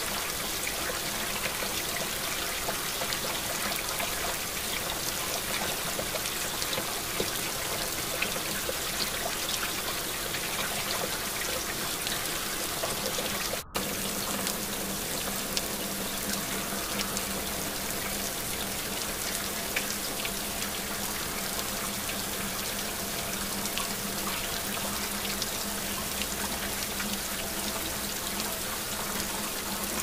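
River rapids: whitewater rushing steadily over rocks, cutting out for an instant about halfway through.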